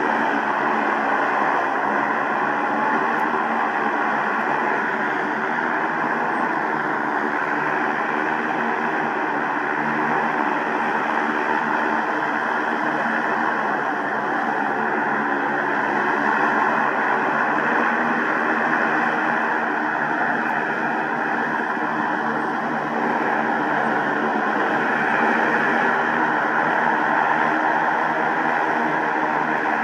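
Battery-powered electric motors and propellers of a large homemade multirotor drone hovering, a steady loud hum made of several stacked tones that waver slightly up and down.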